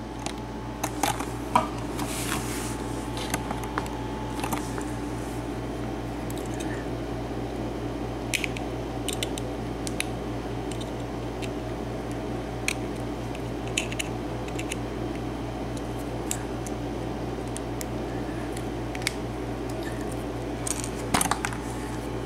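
Light metallic clicks and taps, scattered and irregular with a small cluster near the end, from a Sargent pin-tumbler lock cylinder being taken apart to get at its pins. A small air conditioner hums steadily under them.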